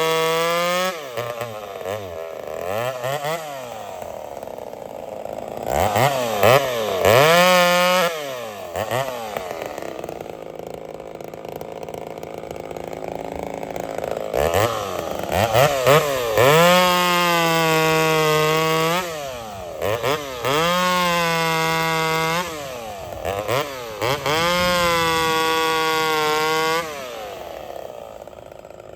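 Ported Homelite VI-130 two-stroke chainsaw with a loud muffler, revving up into several long high-rev runs, some seconds each, as it cuts firewood, with short throttle blips between and dropping back to idle near the end.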